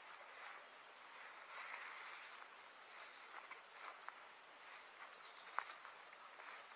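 A steady high-pitched chorus of insects singing in summer woods, with footsteps swishing through tall grass and a sharp little snap about five and a half seconds in.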